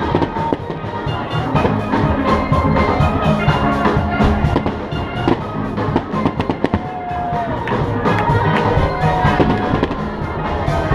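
Music with a drum beat, with fireworks shells bursting in a series of sharp bangs over it.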